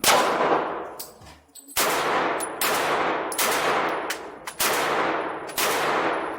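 Gunshots from a Canik TP9 Elite SC 9mm pistol fired in an uneven series, a second or so apart, each crack ringing on in a long echoing decay. Some of the shots are fainter than others.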